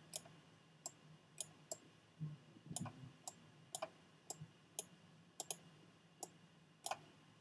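Faint computer mouse clicks, a dozen or so at irregular spacing, as colours are picked in a software colour picker.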